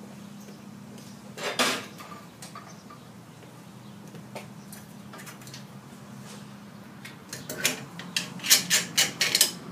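Metal clanks and rattles of a bicycle being loaded onto a Swagman hitch-mounted bike rack: one clank about a second and a half in, then a quick run of sharp metallic clicks and knocks near the end as the bike is seated and secured. A low steady hum lies underneath.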